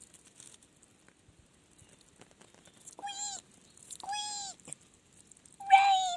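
A cat meowing twice, two short calls about a second apart that rise and fall in pitch, after a few faint clicks.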